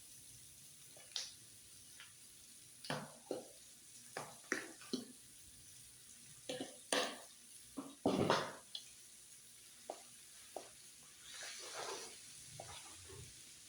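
Utensils knocking and scraping on a flat griddle as pasta is stirred and tossed, a series of irregular clicks and clatters, with a brief sizzle near the end.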